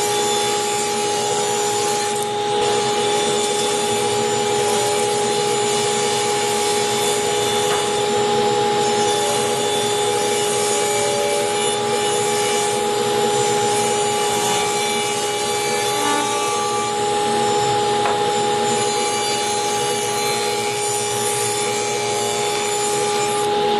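Table saw running and ripping a long softwood board along the fence: a steady whine from the spinning blade over the noise of the blade cutting through the wood.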